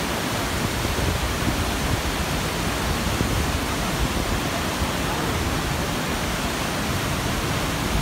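Waterfall and white-water river, the Krimml Falls crashing onto rocks and the torrent rushing below, heard close up as a steady, unbroken rushing noise.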